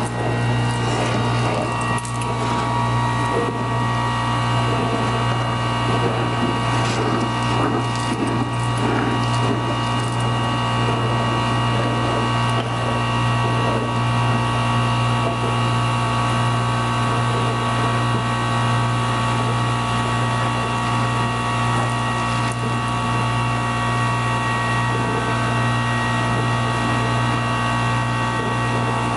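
Industrial vacuum running steadily with a constant hum and whine as it sucks Portland cement powder from a drum through a 2-inch hose and wand. There is a gritty rattling of material in the hose through roughly the first ten seconds.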